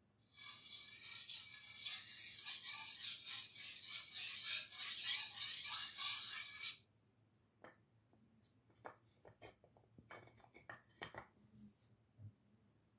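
Handheld sharpening stone rubbed along the edge of a steel butcher knife, rasping continuously for about six seconds and then stopping. Scattered light clicks and taps follow as the stone is set back in its wooden holder.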